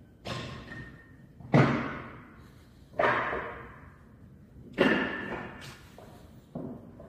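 A series of heavy bangs, five in all at roughly one-and-a-half-second intervals, each ringing on briefly through the large workshop space; the second is the loudest.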